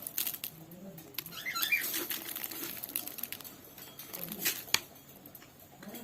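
Cockatiel moving about: light wing flutters and scattered small taps and clicks, with a soft brief chirp about two seconds in and one sharp click near the end.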